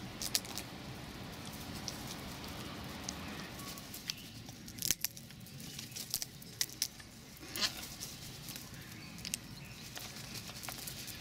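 A crow pecking at nut pieces on a person's denim-covered knee: irregular sharp taps and crackles a second or more apart.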